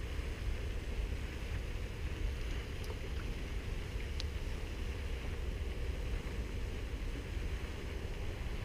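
Steady low outdoor rumble with no distinct events, of the kind made by light wind on the microphone, with a couple of faint ticks near the middle.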